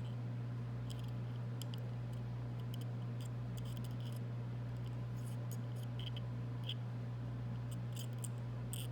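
Light, irregular clicks and scratches of small hard objects being handled, over a steady low hum.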